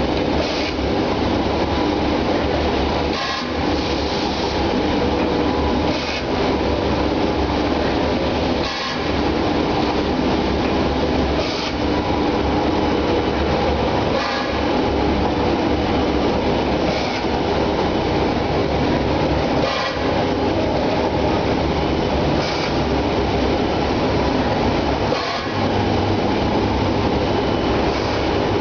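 Egg tray production line machinery running steadily, with a brief sharp sound repeating at an even pace about every two and a half to three seconds, like a machine cycle.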